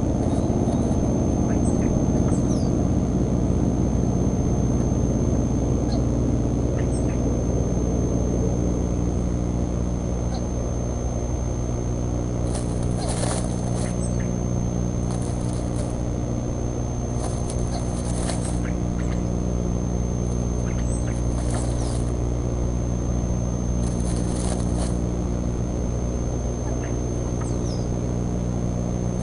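Nest-camera microphone ambience: a steady low electrical hum with a constant thin high whine, a few faint short chirps, and several brief bursts of hiss in the middle. No eagle call stands out.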